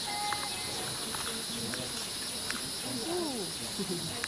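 Rainforest insects, such as cicadas or crickets, buzzing in a steady, high-pitched chorus. Faint voices or calls rise and fall about three seconds in.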